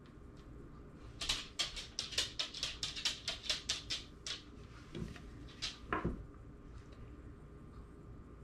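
Paintbrush dabbing chalkboard paint onto rope: a quick run of short, scratchy brush strokes, about four a second, then two or three more strokes after a brief pause.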